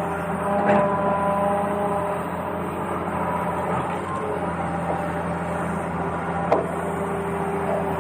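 Small electric motors and plastic gearboxes of a toy RC excavator whirring steadily, with a sharp knock under a second in and another about six and a half seconds in.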